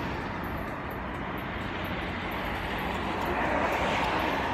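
Steady roar of a passing vehicle, growing louder near the end.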